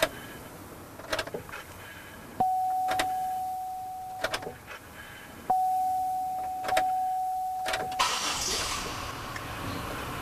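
A 2004 Chevrolet Impala's ignition being cycled on to prime the electric fuel pump after a fuel-filter change. Key clicks are followed twice by the pump switching on with a steady whine for about two seconds. Near the end there is a burst of rushing noise.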